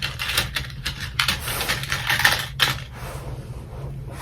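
Irregular clicking and light scraping of metal hoop earrings being pushed and fiddled into an earring holder. The round backing of the hoops won't go in, so they don't fit. A low steady hum runs underneath.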